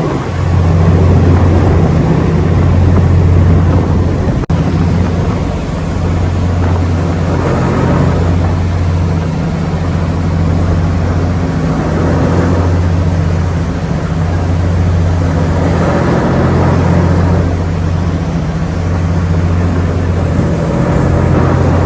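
Engine of the ferry New Kasaoka running steadily under way: a loud, even low drone, with a rushing noise that swells and fades every few seconds.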